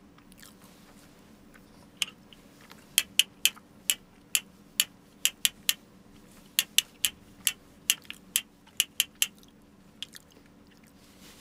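A person chewing a mouthful of bungeoppang (fish-shaped pastry) close to the microphone: a run of sharp, irregular chewing clicks, thickest between about two and ten seconds in.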